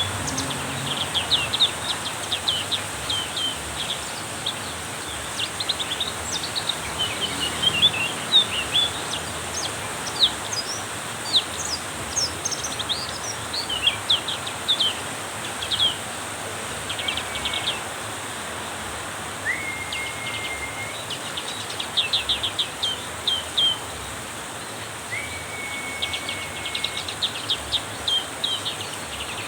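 Black-capped white-eye singing lively, in rapid runs of high chirps and twittering trills, with a couple of longer level whistles in the second half. Underneath is a steady hiss of heavy rain.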